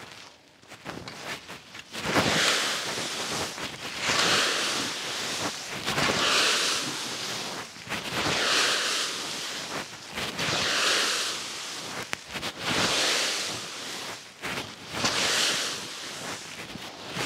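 A rake dragging through dry fallen leaves, one long stroke about every two seconds, starting about two seconds in.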